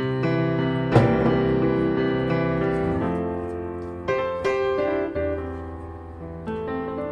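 Slow background piano music, chords ringing out, with a new chord struck every second or two.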